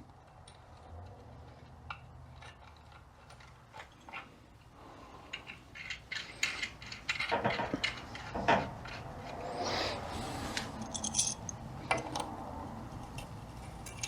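Steel eye bolts clinking, rattling and scraping against metal as they are handled and threaded into a 42RE transmission's pump: scattered small metallic clicks that get busier in the second half.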